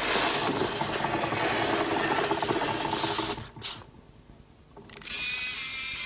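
A heavy wooden box scraping across a tilting platform, a steady grinding scrape that breaks off for about a second past the middle and then starts again.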